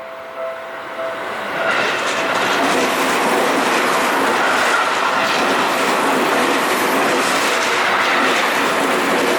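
A level-crossing warning bell dings steadily at the start. About a second and a half in, a Seibu Ikebukuro Line commuter train runs loudly over the crossing, its wheels clattering over the rails, and it keeps passing to the end.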